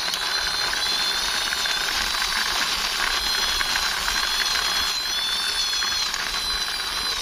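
Plastic toy army jeep pushed by hand along a rough concrete wall top: a steady mechanical whirring with a thin high whine that wavers in pitch, and small clicks as its wheels roll over the grit.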